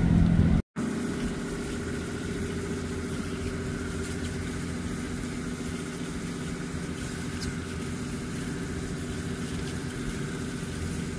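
Ship's engine running steadily, a constant drone with an even hum and low rumble. The sound cuts out completely for a moment under a second in, then carries on unchanged.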